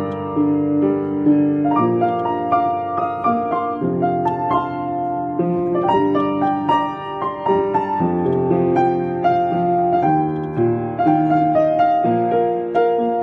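Solo piano music: a steady succession of notes and held chords.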